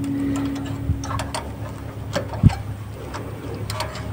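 Small metallic clicks and taps of needle-nose pliers working the spring clip on a disc brake caliper, over a steady low hum, with one low thump about two and a half seconds in.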